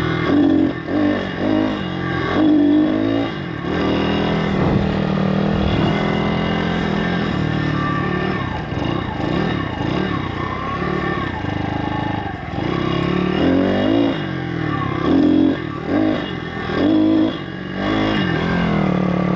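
YX 160cc single-cylinder four-stroke pit bike engine running under way, its pitch climbing and dropping over and over as the throttle is worked. It is reluctant to pick up on the throttle, which the rider puts down to the carb being out of adjustment.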